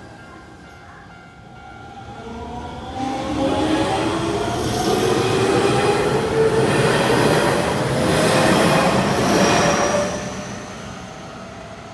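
A Hanshin Electric Railway electric train passing a level crossing. It grows loud about three seconds in, runs past for about seven seconds with wheel and rail noise and a motor whine that slides slowly down in pitch, then fades away.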